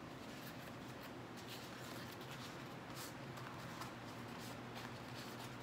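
Banana leaves rustling and crinkling as they are folded and pressed together by hand on a tabletop. There is a faint steady hum underneath.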